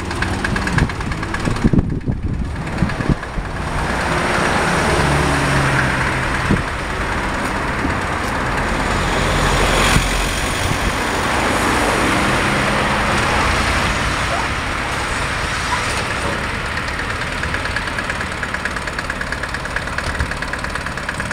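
Microcar M.go microcar's small diesel engine idling and pulling gently at low speed as the car is backed down trailer ramps, with a steady diesel clatter.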